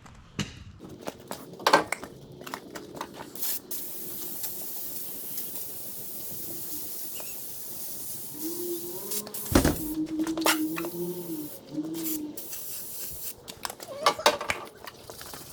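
Aerosol cans of Gunk engine degreaser spraying in long hissing stretches, broken briefly about two thirds of the way through. Sharp knocks and clatter of the cans being handled come early on and near the end.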